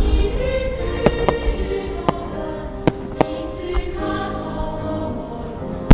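Choral music with sustained voices, played as the soundtrack to a fireworks display, with a few short, sharp pops cutting through it.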